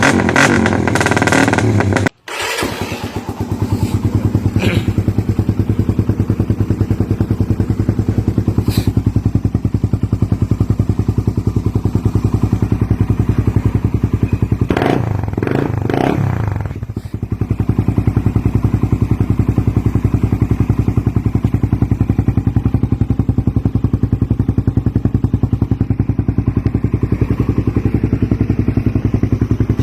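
Suzuki Raider 150 single-cylinder four-stroke engine idling through an aftermarket exhaust, an even, pulsing note, with a few quick throttle blips about fifteen seconds in. The sound drops out briefly about two seconds in.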